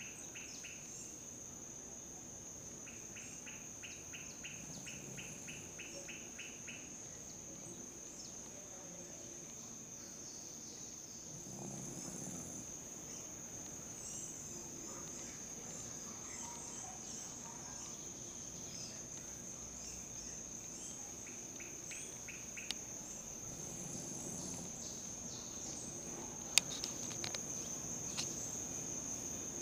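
A steady, high insect trill runs throughout, with runs of fast pulsed chirping twice. Under it, a few faint, low snoring breaths from a sleeping small dog. There is a single sharp click near the end.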